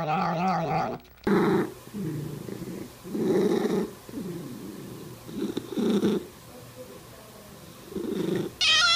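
A cat's drawn-out, wavering yowl cuts off about a second in. Then a cat makes a series of low, rough growling noises, about six separate rumbles of a second or less each. Near the end another high, wavering cat call begins.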